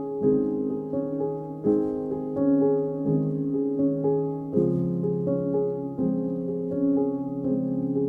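Instrumental background music: melodic notes over held chords, a new note or chord arriving about every half second.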